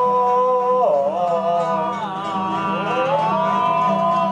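Male voice holding a long, drawn-out sung note that swoops down in pitch about a second in and again between two and three seconds, over steady instrumental accompaniment.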